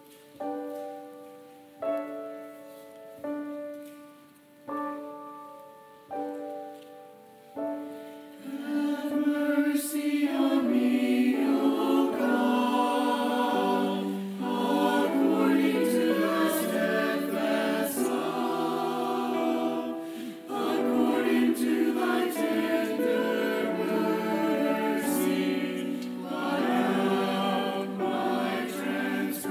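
Piano introduction of separate chords, each fading away, about one every second and a half. About eight seconds in, a mixed adult church choir enters singing in parts.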